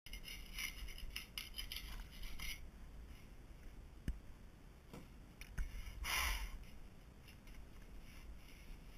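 Rapid scraping strokes over porcelain mosaic floor tile for the first two and a half seconds, then a few light knocks and one short scrape a little past the middle.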